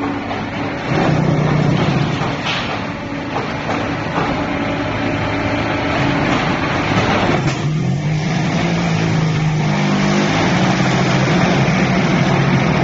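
QT10-15D automatic concrete hollow block making machine running with a steady low mechanical hum. Its pitch shifts up and down in the second half, and there are a couple of short sharp knocks.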